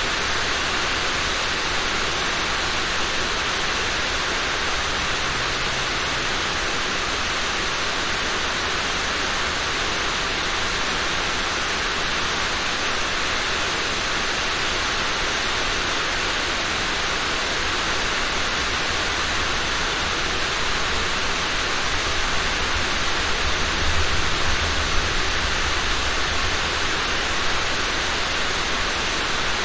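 Steady rain falling as an even hiss, with a low rumble underneath that swells briefly about three-quarters of the way through.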